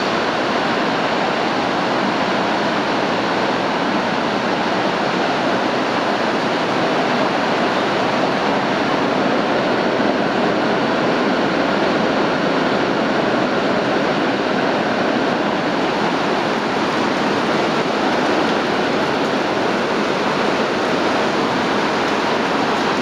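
Heavy tropical rain falling on a tin roof, a loud, steady rush.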